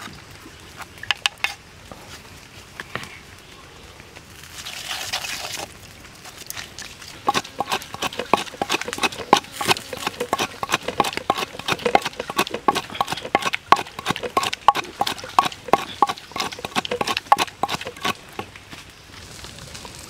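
Wooden pestle pounding and grinding chili, herbs and salt for a chili sauce in a wooden mortar: quick, rapid knocks several times a second through the second half. A few scattered clicks come first, and a short hiss about five seconds in.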